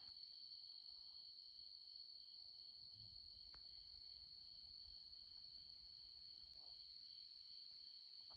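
Faint, steady chorus of crickets, a continuous high trill with a second, pulsing chirp under it.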